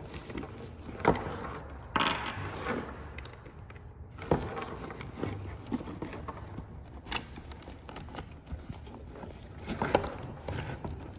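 Handling noise from a scuba backplate-and-wing harness: scattered light clicks and knocks of the hardware and the rustle of the nylon soft pad and webbing as a bolt is worked through the plate and pad.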